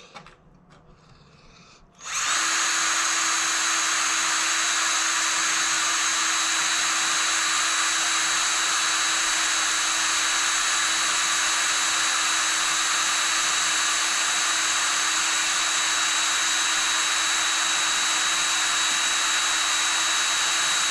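Electric drill starting about two seconds in and running at a steady speed, drilling out the hinge pin screw of a Brompton folding bike, with a constant whine over the cutting noise.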